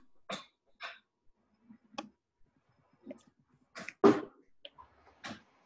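Scattered short knocks and taps of things being handled in a kitchen, heard over a video call, with the loudest knock about four seconds in.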